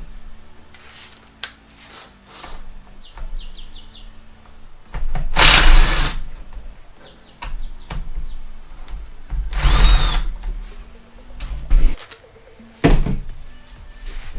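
A handheld power tool runs in two bursts of about a second each, roughly four seconds apart, followed by a couple of sharp metallic clicks, as the transmission's fasteners are worked on.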